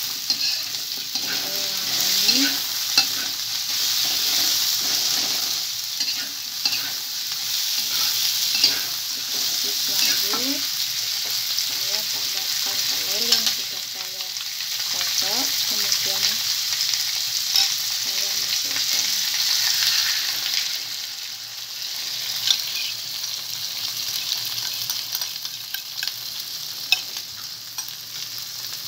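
Sliced onion, tomato and chili sizzling in hot oil in a pan, stirred with a metal spoon that clicks and scrapes against the pan again and again.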